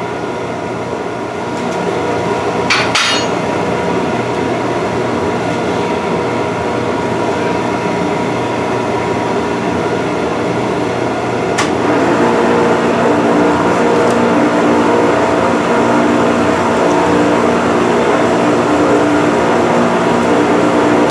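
Metal lathe in a small shop with a steady motor hum and a sharp metallic clack about three seconds in. Near twelve seconds there is a click, and then the lathe runs louder with a steady whine, spinning a wooden dowel in the chuck.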